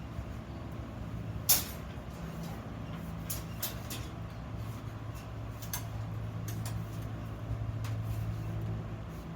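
Sharp metallic clicks and knocks from iron workpieces and tools being handled, over a steady low electrical hum. The loudest knock comes about a second and a half in, and the hum grows louder about halfway through.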